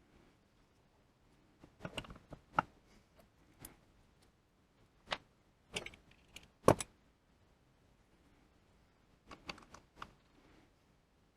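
Metal parts and hand tools clinking and tapping as a lathe apron is reassembled: irregular sharp clicks in three short groups, the loudest a single knock near the middle.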